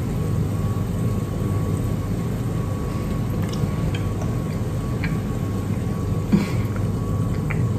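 Steady low machine rumble with a thin constant hum, and faint clicks of chewing on a bite of battered, deep-fried chocolate egg.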